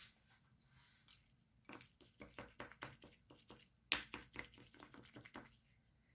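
A quiet run of light clicks and taps from two tiny clear shoe figurines being handled and set down on a plastic-sheeted table, starting about two seconds in, with one sharper knock about four seconds in.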